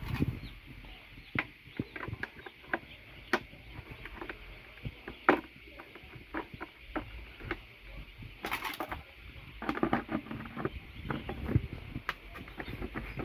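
Scattered clicks and knocks of a chick feed trough being handled and fitted together, with a brief rustling burst about eight and a half seconds in, over the steady peeping of baby chicks.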